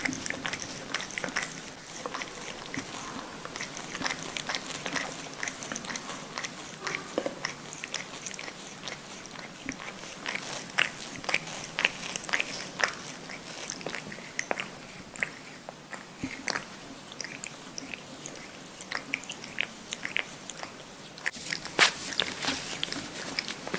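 Cat licking its front paw while grooming: an irregular run of small wet tongue clicks and smacks, several a second, with a few louder ones near the end.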